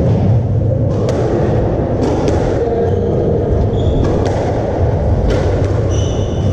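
Squash rally: sharp cracks of the ball off rackets and court walls, about one a second, with short high squeaks of court shoes on the wooden floor, over a steady low rumble.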